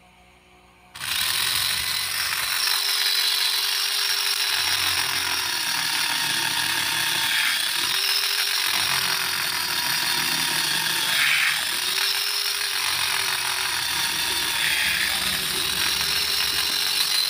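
Homemade mini drill, an RS-545 DC motor driving a salvaged fan synchronous-motor gearbox on 12 V, starts about a second in and runs continuously while drilling holes in a wooden board with a 3.5 mm bit. Its running note breaks and shifts several times as the bit is pushed into and drawn out of the wood.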